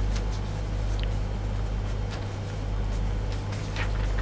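Paper sheets being handled, with a few faint rustles and light clicks over a steady low room hum.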